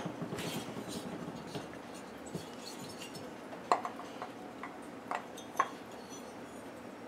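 Scattered light clicks and clinks of an original-style 50 mm Husqvarna 372 chainsaw cylinder being handled and test-fitted onto a crankcase. A few sharper knocks come in the second half.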